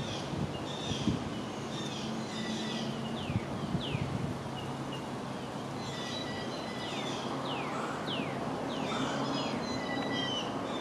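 Birds calling over and over: sharp downward-sliding whistles and chattering notes, over a low steady hum. A few faint knocks sound in the first few seconds.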